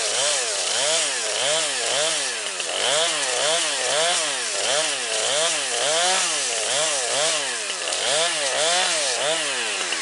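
Chainsaw engine revved up and down over and over, about twice a second, with a loud rasp from the chain, while being used to cut up a Samsung Galaxy S4 phone.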